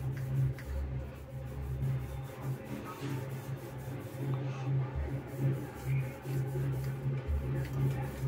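Wooden rolling pin rolled back and forth over a sheet of dough on a stone countertop: a low rubbing rumble that swells and fades with each stroke.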